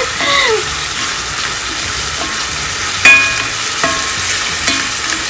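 Chicken, shrimp and crab sautéing in oil in a pot with a steady sizzle while a spatula stirs them, scraping the pan now and then; the loudest scrape comes about three seconds in.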